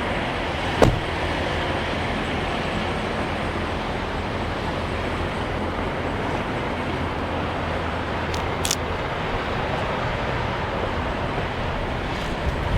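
Steady vehicle noise: idling engines and passing traffic. A sharp click comes about a second in, and a brief high chirp a little past the middle.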